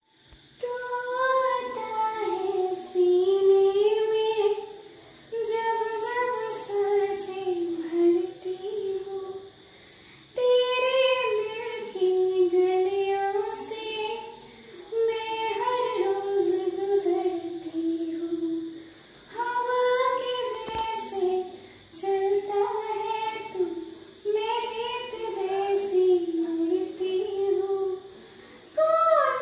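A woman singing a Hindi song solo and unaccompanied, in sustained melodic phrases of a few seconds with short pauses between them.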